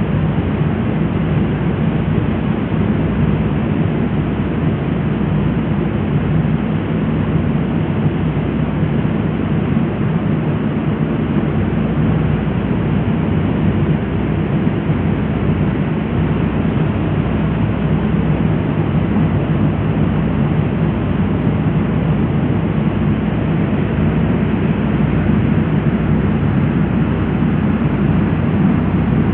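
Passenger ferry underway: its engine running steadily with a loud, even low drone, mixed with the rushing noise of water along the hull.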